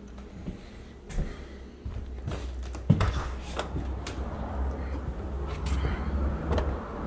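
A glass patio door's lever handle and latch clicking and knocking, with a sharp knock about three seconds in as the door is opened. After that a steady low rumble sets in.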